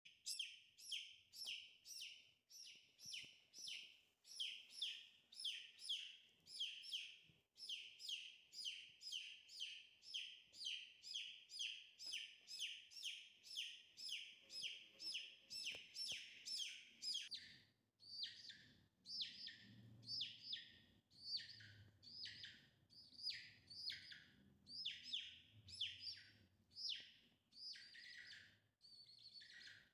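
A chicken chick peeping without pause, in short, high calls that slide down in pitch. The calls come about three a second, then from about halfway they slow to about one and a half a second and reach a little lower.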